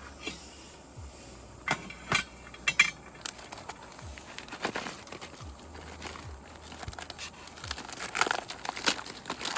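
Crinkling with scattered sharp clicks and clinks of things being handled, the loudest a couple of seconds in.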